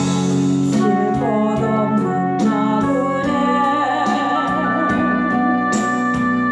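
Christian praise-song music: sustained instrumental chords with a melody whose notes change roughly every second or so.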